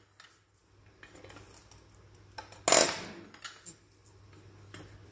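Stock knife, a long hooked bench knife pivoting on an anvil, chopping down through a dry stick: one sharp cut about two and a half seconds in, dying away over about half a second, with a few faint clicks around it.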